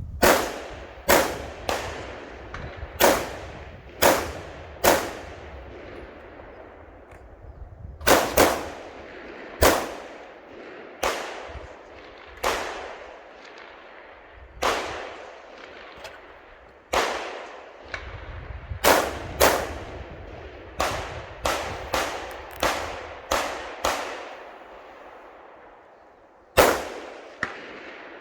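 Rifle shots fired during an IPSC rifle stage: around two dozen sharp reports in uneven strings, some in quick pairs and others a second or more apart, with gaps of a few seconds between groups. Each shot is followed by a ringing echo tail.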